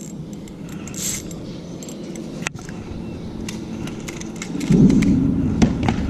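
Light clicks and small metallic rattles of a spinning reel and fishing gear being handled in a kayak, with one sharper click about halfway through. A louder low rumble comes in about three-quarters of the way through.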